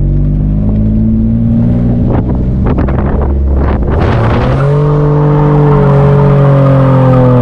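Nissan 350Z's 3.5-litre V6 running hard on a drift pass. A steady engine note gives way to a rough, noisy stretch with clicks in the middle, then the engine note rises and holds loud.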